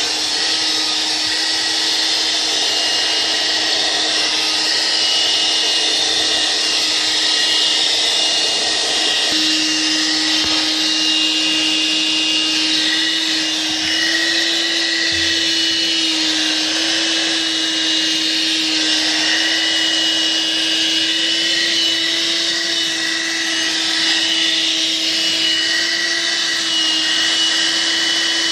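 Armor All car vacuum running continuously, a steady motor hum under a high rush of air, as it vacuums a car interior. Its pitch steps slightly a few times.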